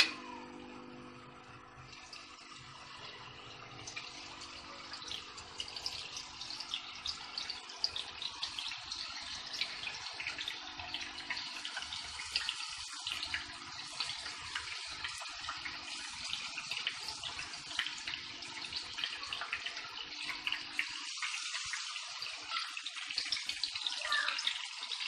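Marinated chicken pieces sizzling and crackling in hot oil in a frying pan, the crackle growing busier over the first few seconds as more pieces go in.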